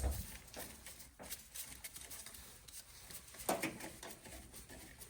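Faint scattered clicks and rubbing of hand-tool work as screws are backed out of a water heater's sheet-metal circuit-board mounting plate by hand, with a knock at the start and a louder clack about three and a half seconds in.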